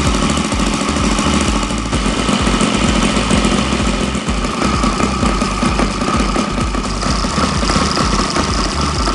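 Saito FA120 R3 three-cylinder four-stroke glow radial model engine running steadily on a test bench, with its propeller turning.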